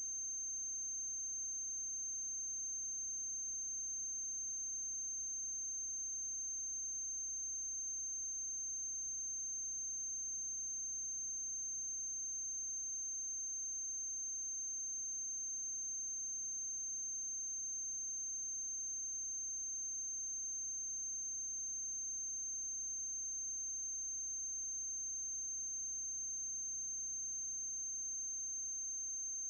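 Steady electrical hum with a constant high-pitched whine over it, unchanging throughout and with no other sound: the noise of the transfer of a silent film's blank soundtrack.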